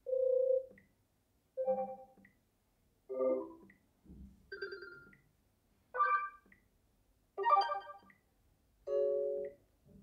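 Sony Xperia 1 VI notification sounds previewed one after another: a string of about seven short, different chimes and jingles, a new one starting every second and a half or so, with brief silence between them.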